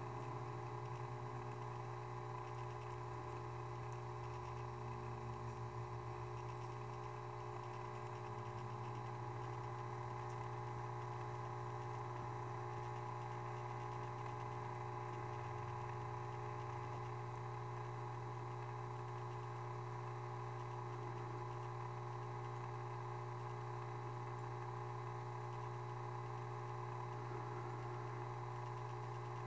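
Aquarium pump humming steadily, a low even drone that does not change.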